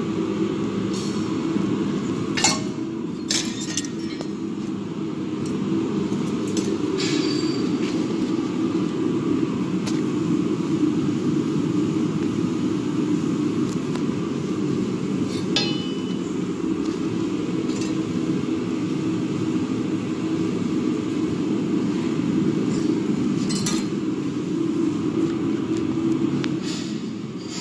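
Forged iron pieces clinking and knocking now and then as they are handled, over a steady low rumble.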